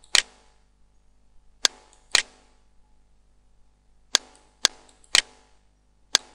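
Computer mouse button clicking sharply, about seven single clicks at uneven spacing, some half a second apart.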